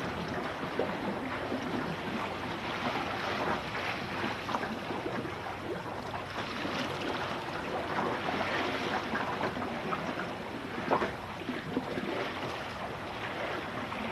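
Water rushing along and slapping against the hull of a Finn sailing dinghy under way, with wind on the microphone. Many small irregular splashes, one louder slap late on.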